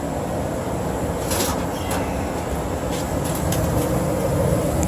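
80% gas furnace running with its burners lit and blower on: a steady rush of air and low rumble through the ductwork, where the duct static pressure is running a little high. A couple of faint clicks sound over it.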